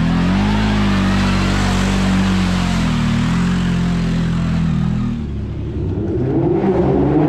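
CFMoto CForce 1000 quad's V-twin engine running under throttle as it drives through mud, its pitch rising and falling slightly. About five seconds in the engine note drops away and a different, higher engine-like sound takes over.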